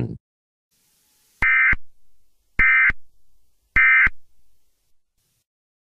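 Three short bursts of Emergency Alert System SAME digital data, the End of Message code that closes an alert: a harsh buzzy warble about a third of a second long, repeated about a second apart, each trailing off faintly.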